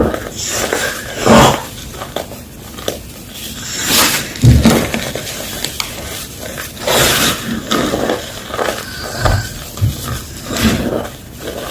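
A homemade gym chalk block crunching: a series of irregular crisp crunches and crumbles, a few of them much louder than the rest.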